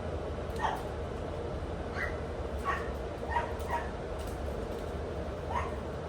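Five-week-old puppies giving about six short, high-pitched yips and whimpers, spread across a few seconds, over a low steady hum.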